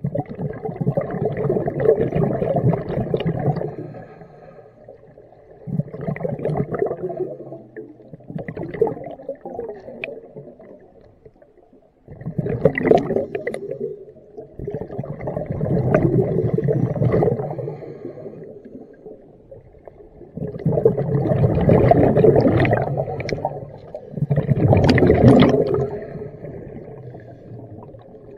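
Scuba diver breathing through a regulator, heard underwater: a rush of exhaled bubbles every few seconds, each burst lasting two to three seconds, with quieter gaps for the inhales.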